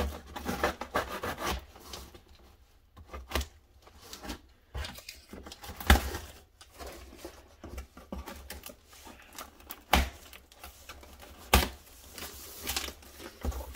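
Cardboard shipping box being opened by hand: irregular scraping and rubbing of cardboard as the flaps are pulled open, with a few sharp knocks, the loudest about six and ten seconds in.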